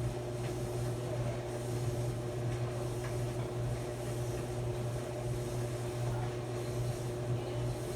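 Maytag clothes dryer running with a steady, even motor and drum hum.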